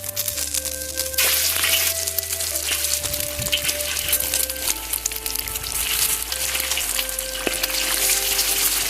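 Red sausages frying in hot oil, a steady dense sizzle with constant crackle and spitting. Background music with slow held notes plays underneath.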